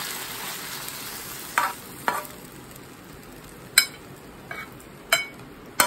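A stir-fry sizzling and dying away as it is tipped out of a non-stick frying pan, with a metal spoon scraping the pan and clicking against it and the plate a few times.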